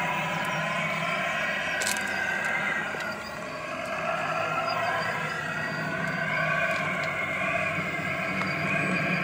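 Radio-controlled scale construction machines running: the whine of their electric motors and gearboxes rises and falls in pitch as they drive and work, over a steady low hum.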